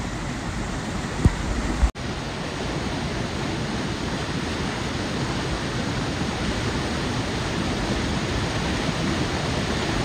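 Steady rushing of a monsoon waterfall, with two short knocks between one and two seconds in and a brief break at about two seconds.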